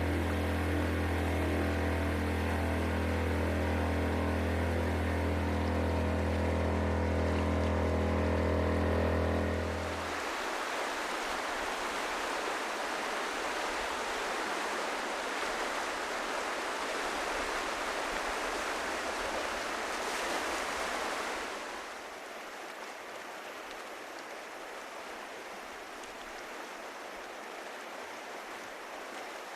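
A steady low drone holding one pitch for about ten seconds cuts off suddenly, giving way to the steady rush of white water in a river rapid. The rush drops to a quieter level about twenty-one seconds in.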